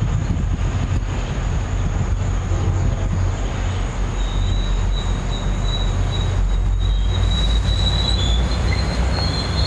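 Commuter train approaching along the track with a steady deep rumble. About four seconds in, a thin high-pitched squeal from the wheels sets in and carries on as the train draws near.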